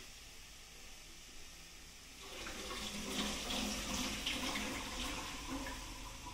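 Gourmia digital air fryer running, a steady fan whoosh and hiss with faint crackling as the battered fries cook; it gets louder about two seconds in.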